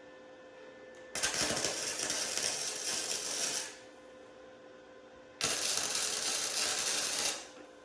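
Flux-core wire welder laying two tack welds on a truck frame: the arc crackles for about two and a half seconds, stops, then crackles again for about two seconds near the end, with a faint steady hum between the welds.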